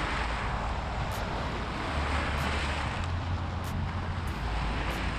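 Small waves washing against a rocky shoreline, the wash swelling and easing every second or two, with wind rumbling on the microphone.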